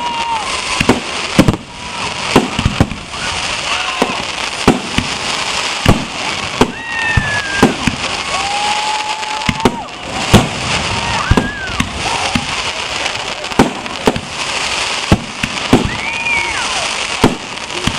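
Fireworks display: aerial shells bursting in a run of sharp bangs, roughly one a second at irregular intervals, over a steady hiss.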